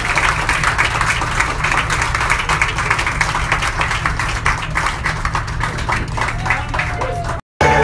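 A crowd of wedding guests applauding, a dense patter of many hands clapping at once. The sound breaks off abruptly just before the end.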